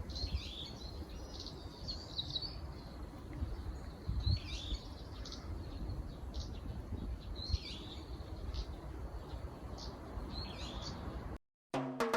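A small songbird singing: a quick, short phrase of high, sweeping notes repeated about every three seconds, with single thin notes between the phrases, over a low background rumble.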